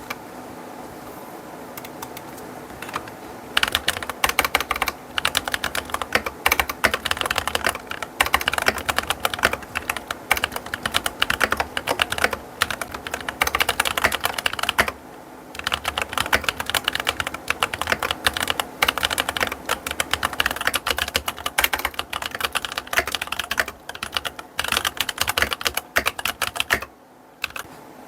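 Keychron K8 Pro aluminium mechanical keyboard with Keychron K Pro Mint switches being typed on in a fast, continuous run of keystrokes. A few light clicks come first, then steady typing starts about three seconds in, with brief pauses about halfway and near the end.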